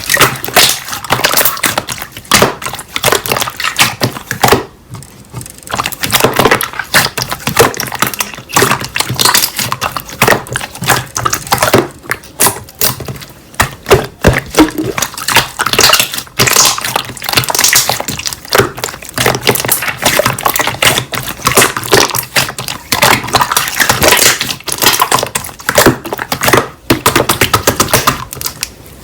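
Slime being squeezed and poked by hand, a dense run of sticky clicks, crackles and pops, with a short lull about five seconds in.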